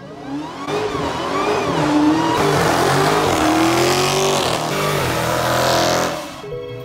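Dodge Charger doing a burnout: the engine revs up and down at high rpm while the spinning rear tyres squeal and hiss on the pavement. The sound falls away suddenly about six seconds in.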